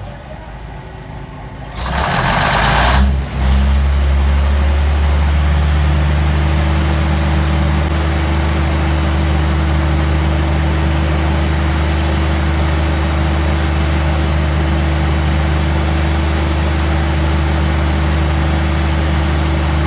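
Cummins NT855 inline-six diesel generator engine running just after its first start in ten years. About two seconds in there is a loud hiss lasting about a second, then the engine settles into a steady run with a faint high whine above it.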